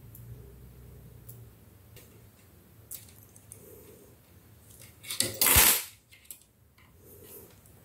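Small clicks and taps of an IC chip being worked out of its socket on a perfboard, with one louder scraping rustle about five seconds in.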